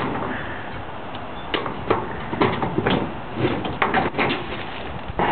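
Irregular knocks and rattles of sheet-metal panels and pen framing being pulled and pried apart during demolition.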